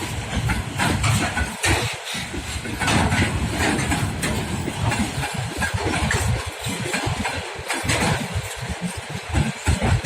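A loaded freight train rolling past on the rails: a continuous rumble of wagon wheels with irregular low swells and scattered short knocks.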